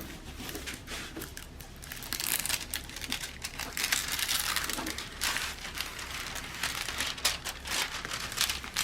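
Plastic-covered diamond painting canvases crinkling and crackling as they are handled and spread out, loudest from about two to five seconds in.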